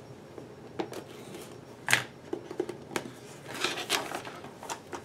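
Scissors cutting the seal on a cardboard product box, then the box being opened and handled: a few sharp clicks and snips, with light cardboard and paper rustling after about three and a half seconds.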